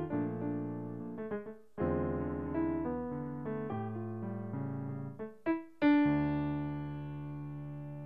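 Electronic keyboard on a piano voice playing slow chords under melody notes. A full chord struck about six seconds in is left to ring and fade.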